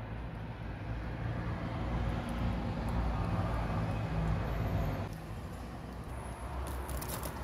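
A low, motor-like rumble that builds over a few seconds, then drops off suddenly about five seconds in to a quieter hum. A few faint clicks come near the end.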